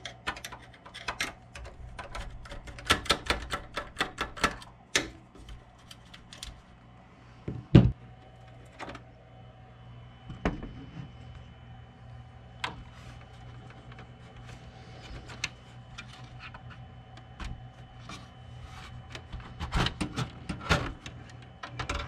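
Screwdriver backing out the bracket screw of a graphics card in a steel desktop case, then the card being worked loose: a run of small metallic clicks and rattles. One louder knock comes just before eight seconds in, and a cluster of clicks comes near the end.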